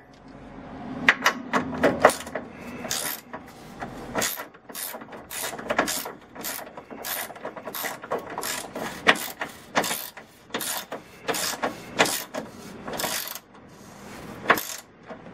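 Hand ratchet clicking through repeated short back-and-forth strokes, about two a second, as it runs a subframe bolt up through a subframe collar.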